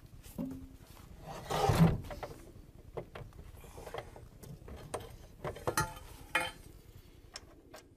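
Hands working at a trolley's wheel hub and metal stand: scattered clicks and knocks of metal parts, with a louder scrape about two seconds in.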